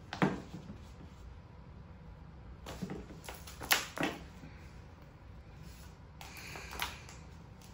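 Handling noise from a baby play mat's padded arch being moved into place: a sharp knock near the start, a few clicks and knocks about halfway through, and a short rustle with a click near the end.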